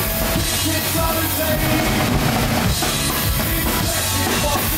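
Punk rock band playing live on stage, the drum kit prominent with bass drum and snare hits under the full band.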